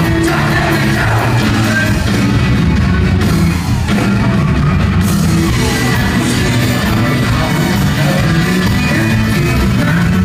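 Live rock band playing loud, with a singer's vocals over the band, heard from within the concert crowd through the venue's PA.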